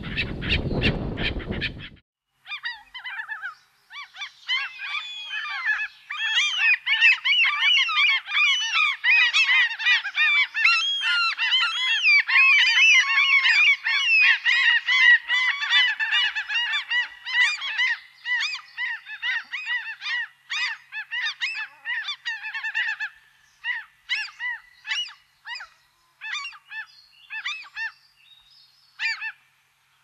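A large flock of birds calling, many overlapping calls that are densest in the middle and thin out to scattered single calls near the end. A different, deeper sound plays for the first two seconds and cuts off abruptly.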